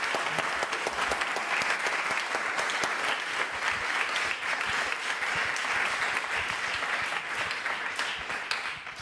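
Audience applauding, many hands clapping together in a steady burst that tapers off near the end.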